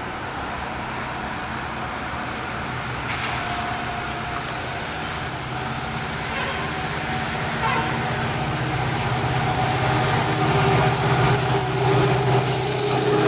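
WDP4 diesel-electric locomotive with a two-stroke EMD 710 engine, working as it hauls a passenger train toward the listener. A steady low engine throb with rail noise grows louder as it approaches.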